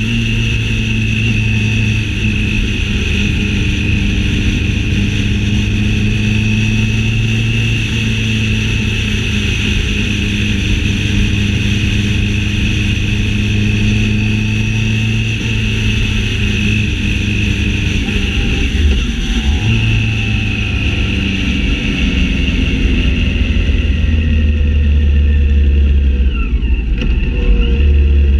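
Motorcycle engine running at a steady cruising speed under the rider, with wind noise and a constant high whine. About two-thirds of the way through the engine note drops, and a deeper, louder rumble builds toward the end.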